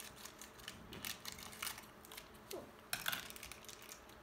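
Small plastic doll-accessory packaging being pulled open by hand: irregular light crinkles and clicks, a louder cluster about three seconds in.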